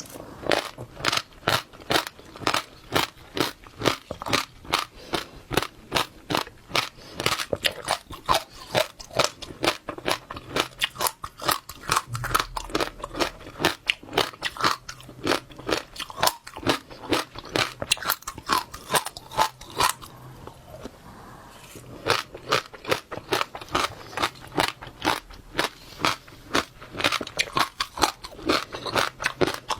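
Close-miked chewing of wet passionfruit seeds: quick, crisp crunches and pops, a few a second, with a brief pause about two-thirds of the way through.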